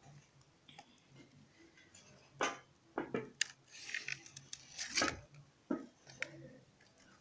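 Irregular clicks, knocks and scraping of battery plates, crumbly debris and a glass filler slab as a cell block is pried out of a cut-open battery case. A crackling scrape comes about midway, and sharper knocks come a little before and after it.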